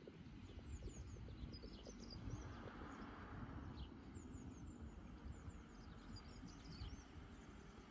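Faint roadside ambience: a low rumble of distant traffic, with one car swelling past around the middle, and small birds chirping now and then.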